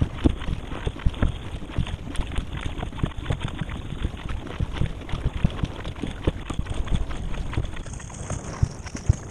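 Surfski being paddled at sea: a steady rush of water along the hull with many small, irregular splashes and knocks as the paddle blades dip in on alternate sides and water slaps the bow.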